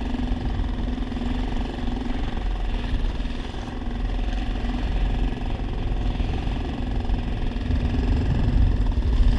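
Small gasoline outboard motor running at a steady speed, driving a kayak through choppy water. Wind buffets the microphone, with a low rumble that grows louder near the end.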